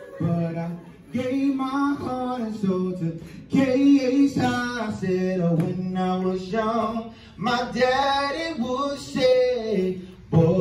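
Fraternity men singing a chant together, in phrases of held notes with short breaks between lines.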